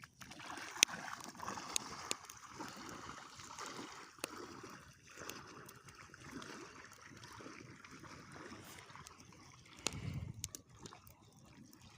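Water sloshing and trickling, with scattered sharp clicks and a low thump about ten seconds in.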